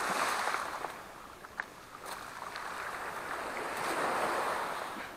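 Small waves washing up a pebble beach, surging twice, with a few sharp crunches of footsteps on the stones.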